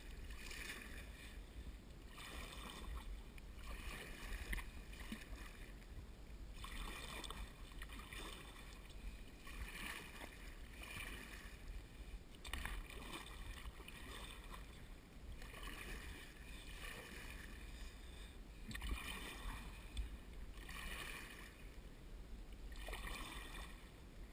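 Double-bladed kayak paddle dipping and pulling through river water in steady strokes, a soft watery swish with each stroke about every second or two, over a steady low rumble.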